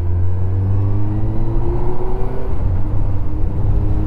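Honda Hornet motorcycle engine pulling away, its pitch rising steadily for about two and a half seconds, then falling back and running on at a steady pitch, over a low rumble.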